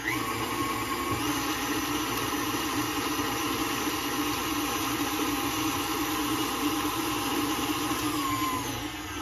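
KitchenAid Deluxe tilt-head stand mixer running, its beater mixing an egg into creamed butter and brown sugar. The motor steps up in speed at the start and again about a second in, then winds down with a falling whine near the end.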